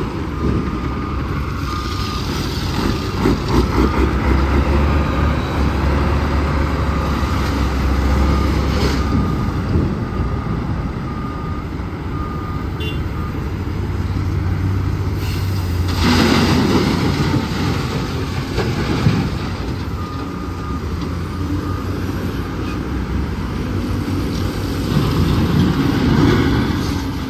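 Heavy diesel dump truck running, a continuous low engine drone with louder stretches.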